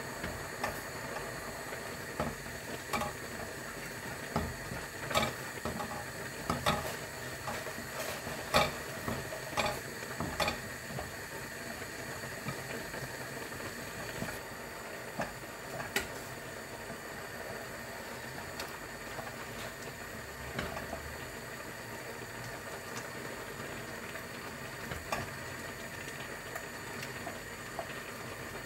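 Water boiling in an aluminium saucepan on a gas burner, with a steady hiss, while wooden spoons stir and knock against the pots. The knocks come often in the first ten seconds, then only now and then.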